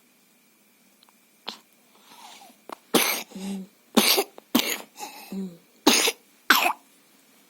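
A baby coughing with a cough and cold: one small cough, then a run of about five loud coughs close together, with short voiced catches of breath between some of them.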